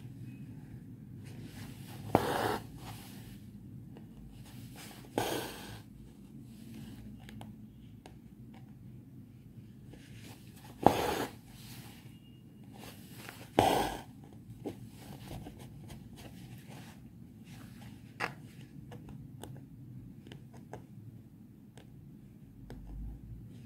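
Embroidery thread pulled through fabric stretched in a hoop, with back-and-forth stitches filling in a petal: about five separate brief pulls, each starting sharply and trailing off, over a low steady background hum.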